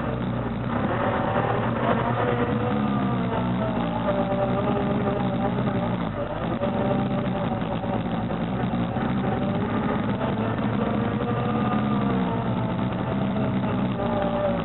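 Single-cylinder four-stroke ATV engine running along a dirt trail, its pitch rising and falling as the throttle is worked.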